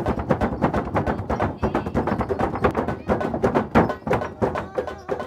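Mentawai hand drums beaten in a fast, driving rhythm, mixed with dancers' heavy foot stamping on a wooden plank floor.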